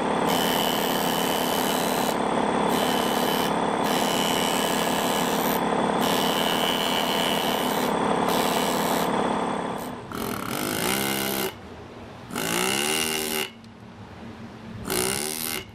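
Pneumatic chisel (air hammer) chiselling into stone, running almost continuously for about ten seconds. After that it comes in three short bursts, its pitch rising and falling as the trigger is eased.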